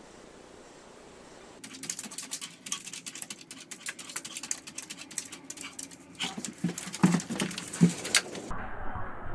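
A small dog's claws scrabbling and scratching fast at a sliding glass door and its frame: a dense run of clicks and taps that grows louder, with a few sharper, louder hits near the end. The first second and a half is only quiet room tone.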